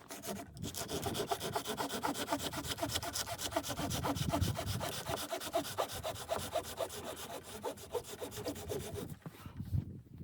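Hand saw cutting wood in quick, even back-and-forth strokes, stopping about nine seconds in.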